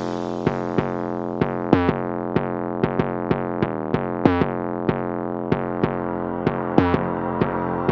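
Background music: a synthesizer or keyboard melody of evenly spaced notes, about three a second, over held chords, without drums.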